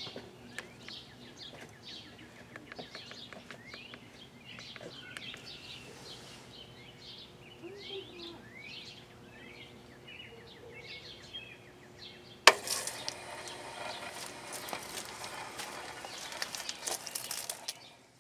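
Small birds chirping in the background. About twelve seconds in, a sharp click and then a steady hiss with crackle: a battery hose timer's valve opening on a manual test run and water rushing into the drip irrigation line.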